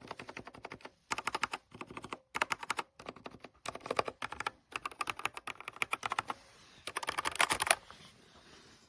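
Typing on a Redragon K689 mechanical keyboard with linear switches: runs of rapid key clacks separated by short pauses. The typing stops about a second before the end.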